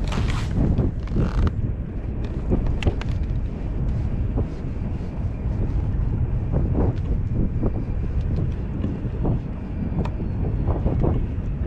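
Wind rumbling on the microphone, with scattered light knocks and taps.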